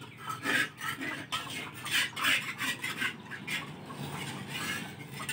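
Metal spatula scraping and clinking against a wok in a run of irregular stirring strokes.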